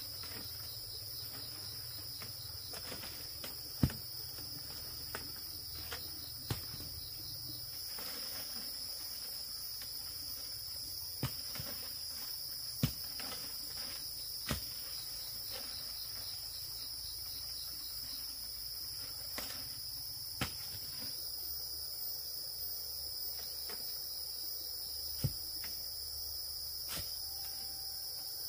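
Steady shrill chorus of insects in the forest, with scattered sharp knocks at irregular intervals, the loudest about four seconds in.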